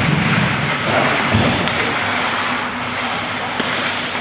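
Ice hockey game sounds in a rink: a steady hubbub of play and spectators' voices, with a single low thud about a second and a half in.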